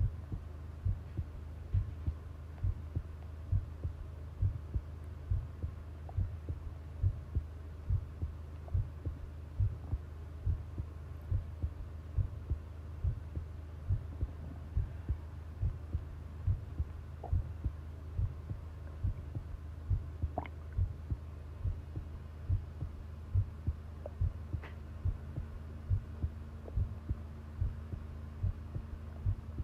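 A human heartbeat picked up close by a microphone: low thuds in a steady, quick rhythm over a low hum. A faint steady tone comes in about two-thirds of the way through, with a couple of faint clicks.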